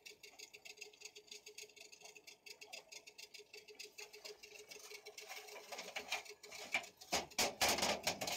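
Wet gill net being hauled by hand over the bow of a metal boat: a fine, steady patter of small ticks and drips. The rustling grows louder and denser near the end.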